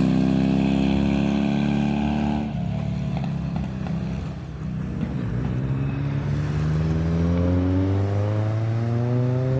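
Car engine pulling hard under acceleration: its note breaks off about a quarter of the way in, then climbs steadily in pitch for the rest of the time.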